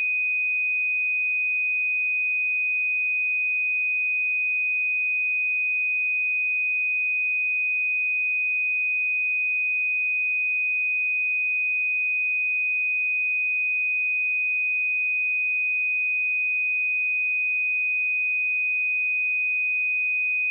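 A single pure 2496 Hz sine-wave test tone, held at a steady pitch and level throughout.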